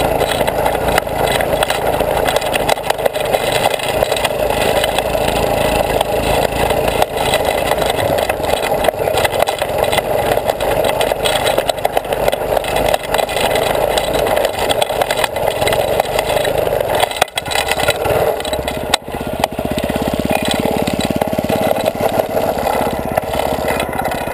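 Go-kart's small engine running steadily as the kart drives over grass, heard close up from a camera mounted on the kart. The level dips briefly twice about two-thirds of the way through.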